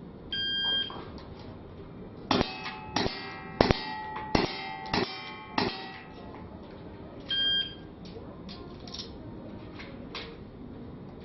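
A timer buzzer sounds, then six revolver shots come in quick succession, each followed by a metallic clang of the target ringing. About seven seconds after the first beep the buzzer sounds again, marking the end of the 7-second time limit, and a few faint clicks follow.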